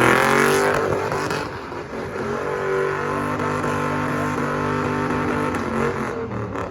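Car engine revving up quickly over the first second, then held at high, steady revs while the car spins its tyres in a donut. The revs drop off near the end.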